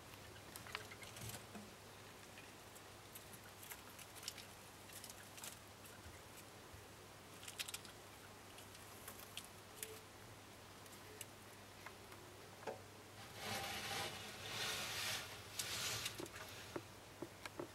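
Gray short-tailed opossums scurrying over wood-chip bedding and bark, their claws making scattered light clicks and patters. About thirteen seconds in comes a louder spell of rustling lasting about three seconds, in three surges.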